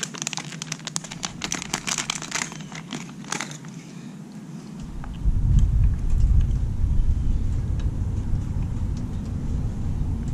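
Small plastic packet crinkling in the hands for the first few seconds, a dense run of crackles. About five seconds in, a loud low rumble sets in and becomes the loudest sound.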